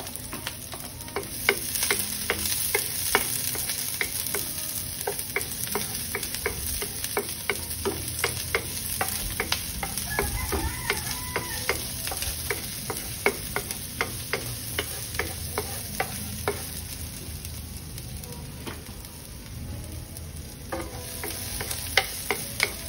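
Diced onions sizzling in hot oil in a nonstick wok, with a wooden spoon stirring them and clicking against the pan about once or twice a second. The clicks thin out for a few seconds near the end while the sizzle goes on.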